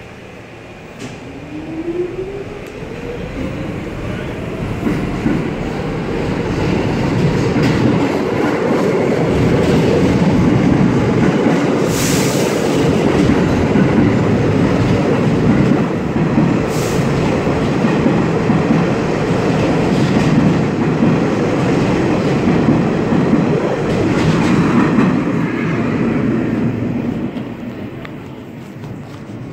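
New York City subway Q train pulling out of the station: its motors whine up in pitch as it accelerates, then the wheels rumble and clack along the rails as the cars pass. There are a couple of sharp clanks, and the sound dies down near the end as the last car leaves.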